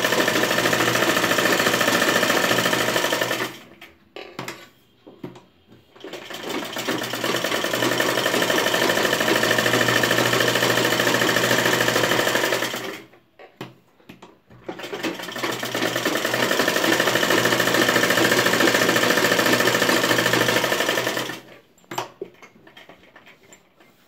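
Sewing machine stitching fabric onto a lining in three steady runs, stopping briefly twice in between with a few small clicks as the cloth is handled.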